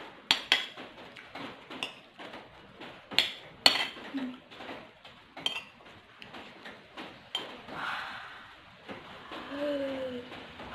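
Metal spoon and chopsticks clinking and scraping against a plate as food is picked through, with a sharp clink every second or so. Near the end, a short falling vocal hum from the eater.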